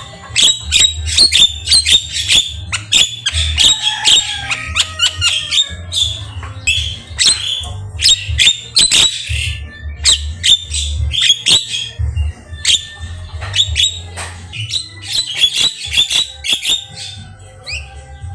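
Javan myna singing a long, rapid run of harsh squawks, clicks and short sharp whistles, one call after another with only brief gaps.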